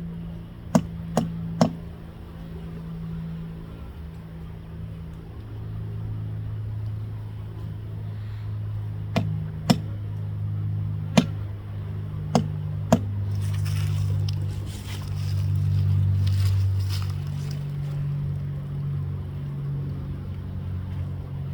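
Framing hammer striking staples into a wooden beehive body: three quick blows about a second in, then five more spread out between about nine and thirteen seconds, over a steady low hum.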